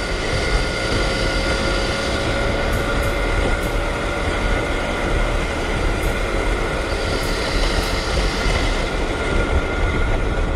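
Goods train: a loud steady rumble with a steady high whine held over it.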